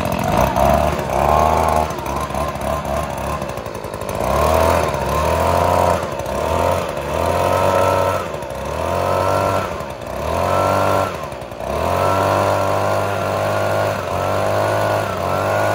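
Echo PB-2520 handheld leaf blower's small two-stroke engine running just after its first start, choke off, revved up and down again and again, about every second and a half, dropping back toward idle between revs.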